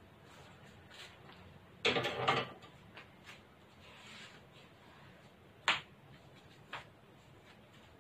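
A few scattered clicks and knocks: a short burst of clattering about two seconds in, then a single sharp click near six seconds and a softer one after it, over a faint steady background.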